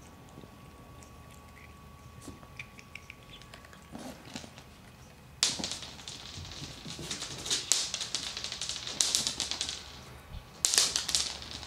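A cat scrabbling across a laminate floor after tossed dry kibble: a sudden rapid clatter of claw clicks and scratches starts about five seconds in, dies down, then comes again near the end.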